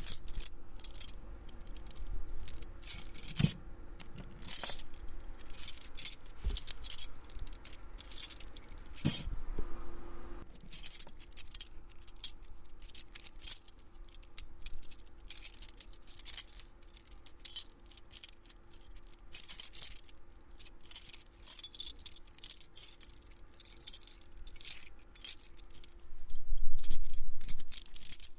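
A bunch of metal keys jangling and clinking as they are shaken and handled, in dense irregular bursts with a short pause about ten seconds in and a few duller knocks.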